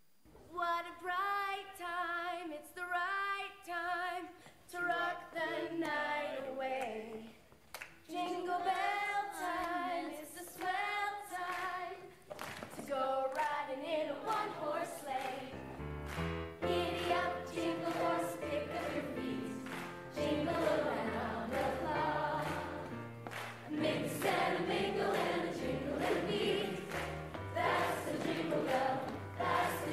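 Music with female singing for a stage dance number. A slow, sparse opening of held, wavering sung notes gives way about halfway through to a fuller pop arrangement with a steady bass beat under the singing.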